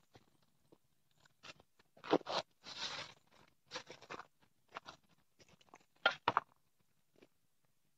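Thin plastic bag crinkling and rustling in short irregular bursts as hands open it and reach inside.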